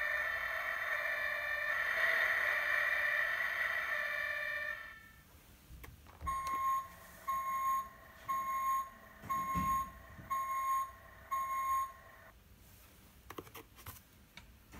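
Electronic sound effects from a Dickie Toys Fire Rescue Unit toy fire engine: a steady electronic tone that cuts off about five seconds in, then six evenly spaced beeps about one a second. A few faint clicks come near the end.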